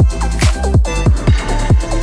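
Background electronic music with a fast, steady beat and deep bass notes that drop in pitch on each hit.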